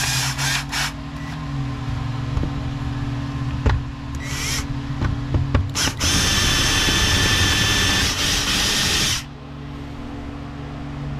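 Power drill drilling out the rivet that holds the bearing housing on a Stihl HT 131 pole saw's aluminium drive shaft tube. It gives a few short bursts, then runs steadily for about three seconds and stops suddenly.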